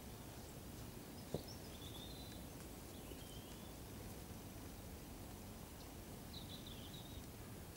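Quiet outdoor ambience with a steady low rumble, faint high bird chirps a few times, and one sharp tap about a second and a half in.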